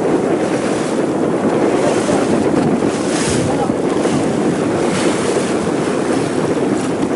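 Boat under way at sea, heading into the wind and waves: a steady loud rush of water and wind buffeting the microphone, with brief swells of hissing spray about three and five seconds in.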